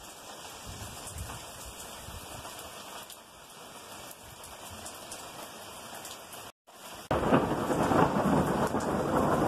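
Steady heavy rain falling. About seven seconds in, after a brief cut-out, a much louder, sustained rumble of thunder comes in over the downpour.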